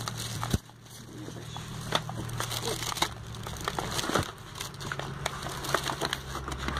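Plastic wrapping crinkling and cardboard product boxes knocking as a hand rummages through a box of packed cosmetics, in scattered short clicks and rustles with a sharp knock about half a second in, over a steady low hum.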